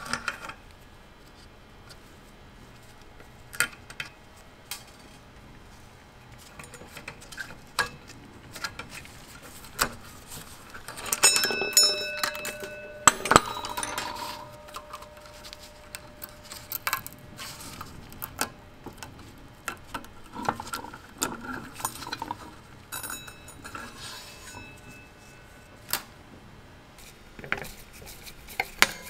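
Small metal parts of an antique electric fire bell's mechanism clicking and clinking as it is taken apart by hand and with a screwdriver, with scattered taps and knocks. About eleven seconds in there is a cluster of louder knocks and a metal part rings briefly.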